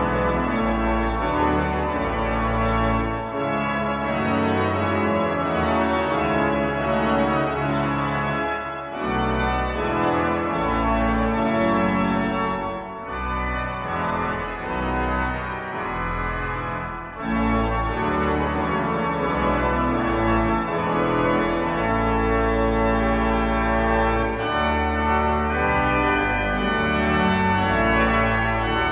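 Pipe organ playing slow, sustained chords over a deep pedal bass, the harmony shifting every second or two with brief pauses between phrases.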